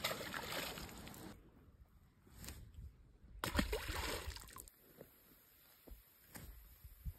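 Bass being released into a pond: water sloshing as a fish splashes in the shallows at the bank, then a louder splash about three and a half seconds in as a fish hits the water.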